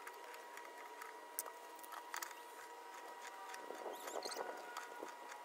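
Faint scattered clicks and scratching of hands tightening the hose nut onto the booster pump's fittings, busiest a little past the middle, over a faint steady high-pitched hum.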